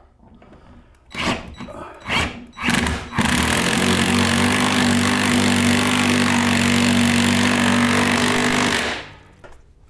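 Ryobi cordless drill with a socket driving a bolt through a ceiling bracket into a joist. A few short bursts of the motor come first, then a steady run of about six seconds that stops near the end.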